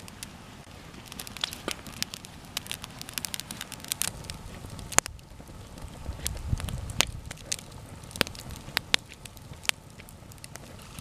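Open wood campfire crackling, with many sharp pops and snaps scattered over a steady hiss of burning logs. A low rumble swells briefly a little past the middle.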